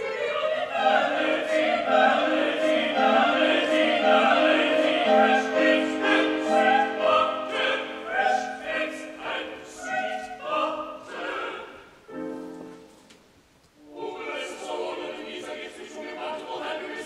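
Operatic ensemble of several voices singing together in parts. About twelve seconds in, the singing breaks off for a moment, then resumes.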